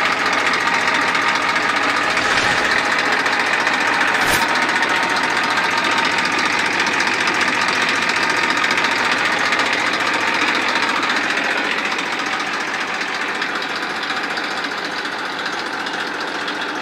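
Tafe 45 DI tractor's three-cylinder diesel engine running steadily with a dense diesel clatter; the engine has recently been overhauled. A single sharp click about four seconds in.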